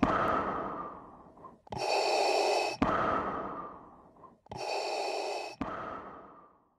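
Darth Vader-style masked respirator breathing: two slow breath cycles, each a steady hiss that cuts off sharply and is followed by a breath that fades away.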